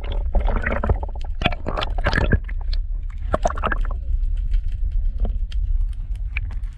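Water sloshing and irregular knocks over a steady low rumble, busiest in the first half and thinning out after about four seconds.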